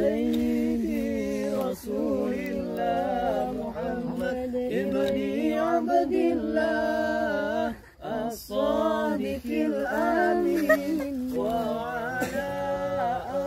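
Voices chanting an Islamic devotional recitation, selawat, unaccompanied, in long wavering held notes with a short break about eight seconds in.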